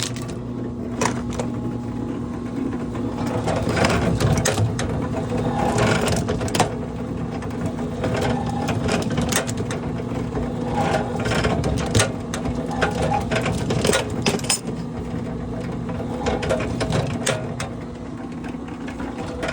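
Electric 1500-watt double-sided wire stripping machine running with a steady motor hum, with irregular clicks and knocks from its rollers and knives as thick aluminum wire is fed through and stripped.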